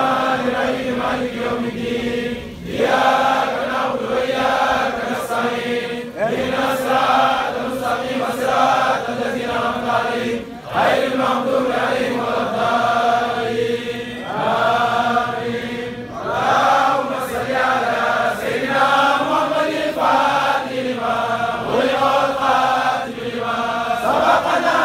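A large group of men chanting a Sufi dhikr in unison, repeating a phrase a few seconds long with short breaks between the repeats.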